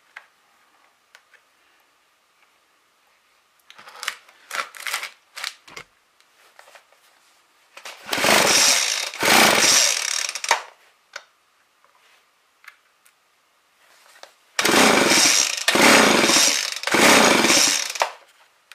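McCulloch Eager Beaver two-stroke chainsaw being pull-started in two sets of about three quick rips of the recoil starter cord. The engine turns over but does not catch. It is being cranked to check for ignition spark with a spark tester on the plug wire; a few fainter handling knocks come before the pulls.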